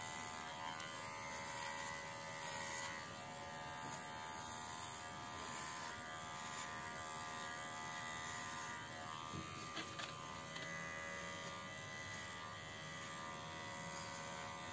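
Baorun P2 cordless pet hair trimmer running with a steady, quiet buzz while clipping a Yorkshire terrier's coat, with a couple of faint ticks about two-thirds of the way in.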